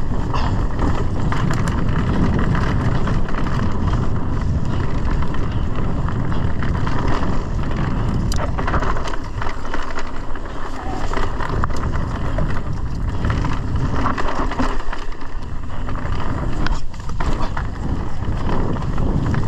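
Mountain bike riding down a dirt trail: a steady loud rumble of tyres and air rushing past, with frequent clicks and rattles from the bike.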